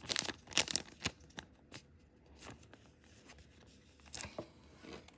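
Thin plastic penny sleeve crinkling and trading cards rustling as they are handled, in short scratchy bursts that are busiest in the first second.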